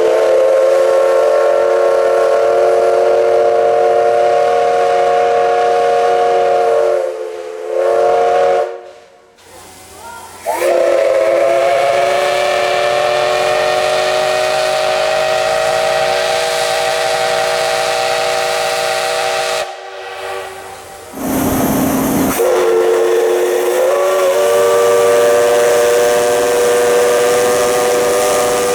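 Steam locomotive whistle sounding long blasts, several steady tones together as one chord. It breaks off twice. About 21 seconds in, a short burst of hissing steam comes before the whistle sounds again.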